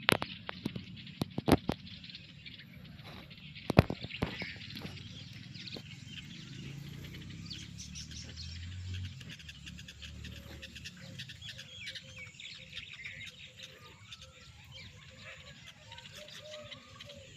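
Birds chirping, with several sharp clicks in the first few seconds and short warbling calls near the end.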